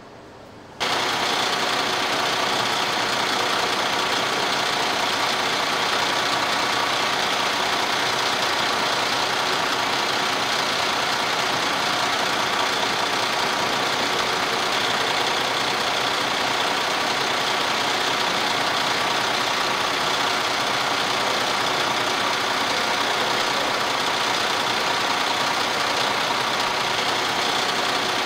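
MAN bus diesel engine idling steadily, heard close at the open engine bay with its accessory belts and pulleys turning. It comes in abruptly about a second in.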